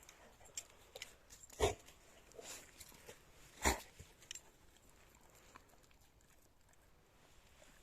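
A Labrador retriever close by, with two short loud bursts about two seconds apart among scattered small crackles and clicks.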